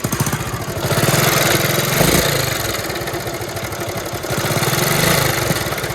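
Chinese CD 70-type 70cc single-cylinder four-stroke motorcycle engine running and revved up twice. It makes a nasty timing-chain noise, which the mechanic takes for a timing chain needing replacement; the silencer is also faulty.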